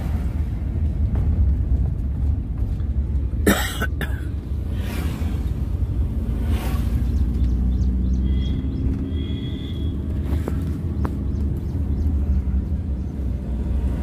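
Inside a moving car's cabin: steady low engine and road rumble while driving, with a single sharp knock about three and a half seconds in.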